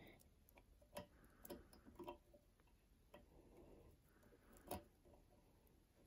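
A few faint clicks and ticks of a wire whip finisher being worked around the thread at the head of a fly in a fly-tying vise, the sharpest click about three-quarters of the way through.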